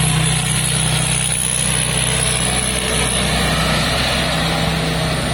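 Rice combine harvester's Hino J08C turbo-diesel engine running steadily, with the constant noise of the machine's working parts.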